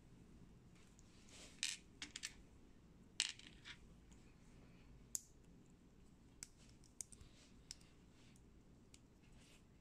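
Small plastic building bricks clicking against each other and being pressed together: a scatter of sharp clicks, the loudest about one and a half and three seconds in.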